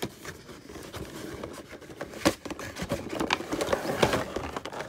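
Cardboard toy box being handled and opened: rustling and scraping of cardboard and plastic packaging, with a sharp click about two seconds in and another near the end.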